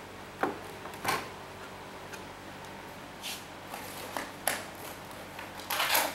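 Scattered clicks, taps and short scrapes of small car parts and tools being handled by hand, a cluster of them near the end, over a faint steady hum.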